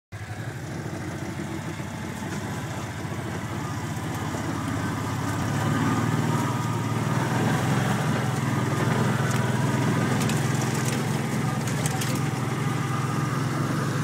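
Off-road utility vehicle's engine running as it drives along a dirt trail, growing louder over the first several seconds and then holding steady. A few sharp clicks come near the end.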